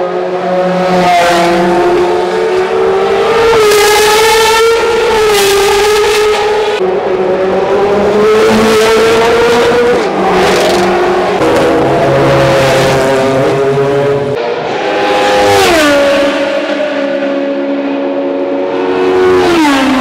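Historic Formula 1 car engines running at high revs, the pitch rising and falling as they drive. Twice in the last few seconds the pitch drops sharply.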